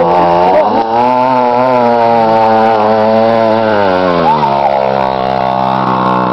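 Mini quad bike's small engine running as it comes up close and passes, its revs rising and falling, then dropping to a lower, steadier pitch about four seconds in.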